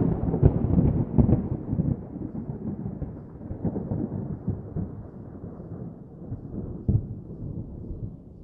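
A roll of thunder: a low rumble with crackles that starts suddenly, is loudest at first, and fades away over several seconds.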